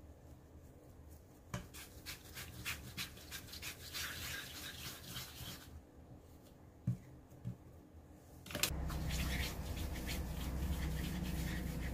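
Hands rolling and pressing soft bread dough into balls on a silicone baking mat: soft rubbing with many small ticks for a few seconds, then two light knocks. A steady low hum sets in about three-quarters of the way through.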